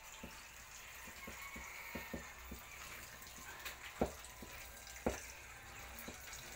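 Water trickling and dripping from a faucet while a hand works wet grain feed in a metal plate, with scattered light clicks and two louder knocks about four and five seconds in.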